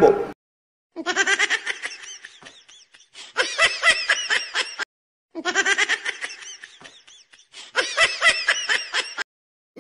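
A recorded laugh played twice in a row, identical both times: a quick run of laughing that trails off, then a second burst, as an added sound effect.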